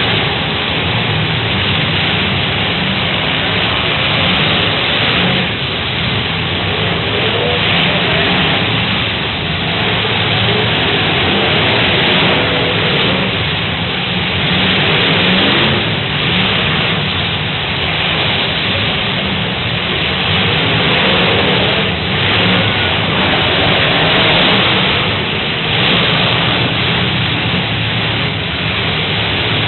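Many demolition derby cars' engines running and revving at once, heard as a loud, dense, steady noise.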